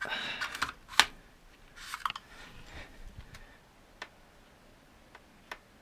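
Small screwdrivers being handled and swapped: a short rustle, one sharp click about a second in, another rustle near two seconds, then a few faint ticks as the next-size Torx driver is picked up and set to a screw.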